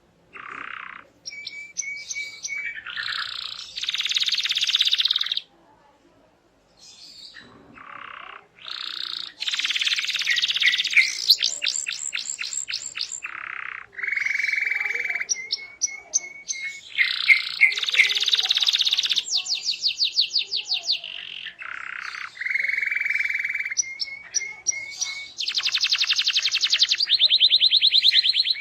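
Domestic canary singing a long, varied song of fast trills, rapid repeated notes and steady whistled notes, broken by a short pause about six seconds in. It is the full, continuous singing that keepers call 'gacor'.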